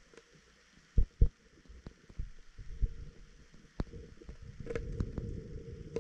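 Dull low thumps and sharp knocks picked up by an underwater camera beneath the ice: two strong thumps about a second in, scattered clicks, then a low rumble that builds near the end.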